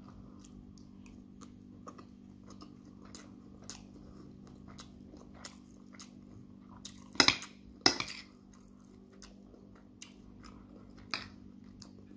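A metal fork clinking and scraping against a plate while scooping up jollof rice, with soft chewing between scoops; two louder clinks come about seven and eight seconds in.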